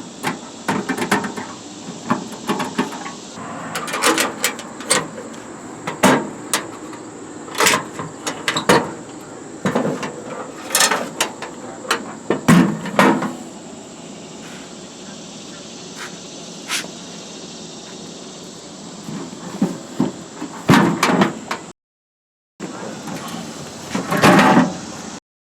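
Vintage solid-steel tool box being opened and shut: its metal drawers sliding in and out and its lid closing, with repeated irregular clunks and rattles of sheet steel.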